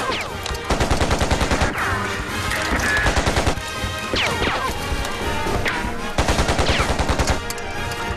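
Automatic gunfire in several rapid bursts of about ten shots a second, mixed with falling whistles.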